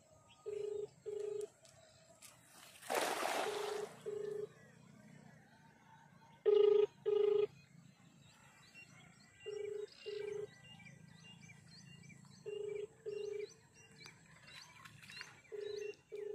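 A telephone ring tone repeating: a pair of short low beeps about every three seconds, the double-ring cadence of a phone call ringing through on a speaker. About three seconds in, a cast net lands in the canal water with a one-second splashing hiss.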